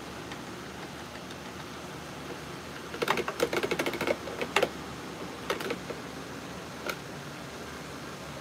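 A utensil scraping and tapping against a plastic food-processor bowl while scooping out a thick, soil-like mix: a quick run of clicks about three seconds in, then a few single taps.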